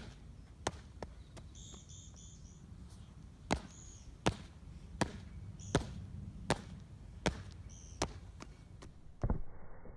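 Feet landing on the ground in a two-footed jumping drill: sharp footfalls at an even pace of about one every 0.7 seconds, with a pause of about two seconds near the start.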